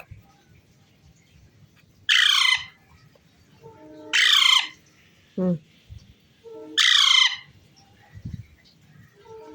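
Pet parrot squawking: three loud, harsh calls about two seconds apart, each falling in pitch, with softer short chattering sounds in between.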